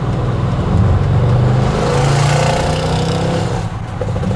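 Car engine and exhaust pulling hard under acceleration in race mode, building strongly about a second in and easing off near the end.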